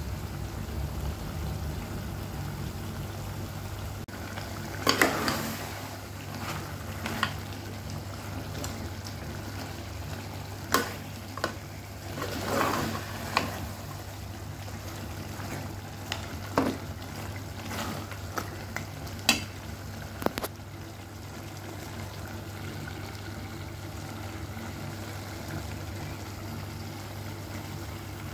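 A metal spoon scrapes and clinks against a metal pot as chunks of beef in thick gravy are stirred, in scattered short strokes over the first two-thirds. Underneath, the curry sizzles and simmers over the flame with a steady low hum.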